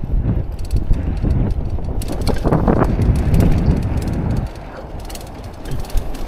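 Bicycle rolling over brick and cobblestone paving: a rough rumble of the tyres and frame with rattling clicks, loudest over the first four seconds and easing off about four and a half seconds in.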